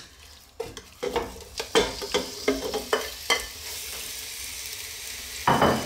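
Spice-rubbed beef chuck chunks dropping into a saucepan of hot olive oil: a quick run of crackles and spits over the first few seconds, settling into a steady sizzle of the meat frying. One short louder noise near the end.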